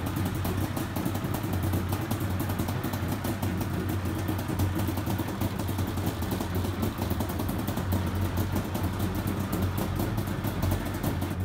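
Homemade helicopter's carburetted engine running steadily at an even, low speed, driving the newly built driveshaft during its first drive test.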